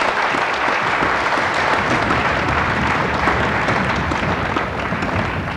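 Theatre audience applauding steadily, tailing off near the end.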